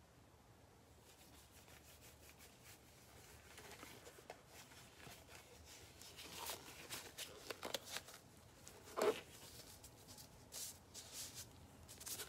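Faint, scattered rustling and light tapping of objects being handled, with one louder knock about nine seconds in.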